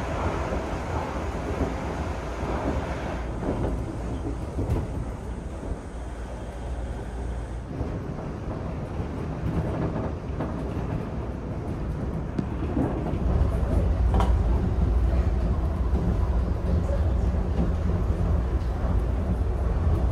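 Shonan Monorail suspended monorail car running, heard from inside the car: a steady rumble of the train in motion that grows deeper and louder about two-thirds of the way through.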